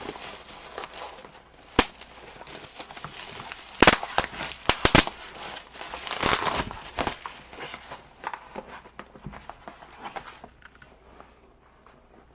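Taped parcel packaging being torn open by hand: crackling tape and plastic wrapping, with several sharp snaps. The handling dies down near the end.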